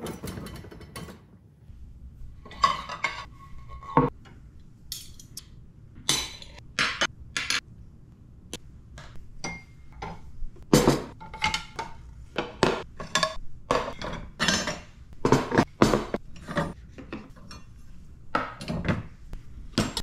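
Dishes, a mug, glasses and cutlery clinking and knocking as they are lifted out of a countertop dishwasher's wire racks: a run of irregular sharp clinks and clatters.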